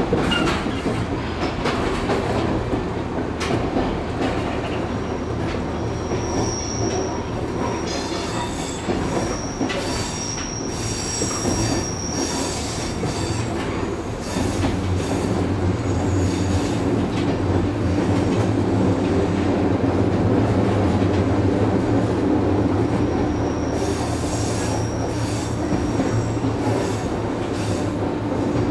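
JR West Series 103 commuter train running, heard from inside the passenger car: a steady rumble of wheels and motors on the rails. High-pitched wheel squeal comes in a few seconds in, again around the middle and near the end. The running noise grows louder about halfway through.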